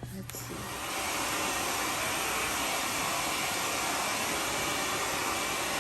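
Handheld hair dryer blowing steadily, coming on about a second in.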